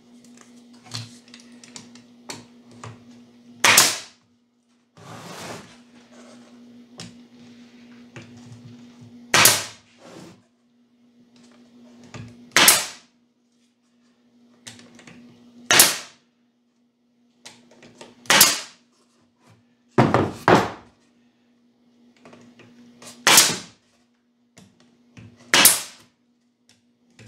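Pneumatic stapler firing staples into a wooden jig box: about eight sharp shots, one every two to six seconds, with small knocks of the wood being shifted between shots. A steady low hum sits underneath.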